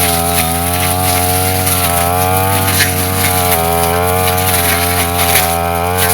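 Brush cutter engine running hard at high revs, its pitch wavering slightly up and down as the blade takes and sheds the load of cutting grass.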